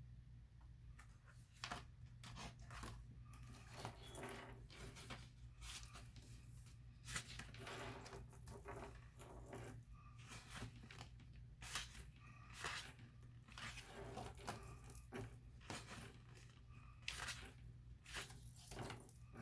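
Sheets of a gold foil cardstock paper pad being handled and flipped through, with irregular rustles and crisp crinkles over a faint steady hum.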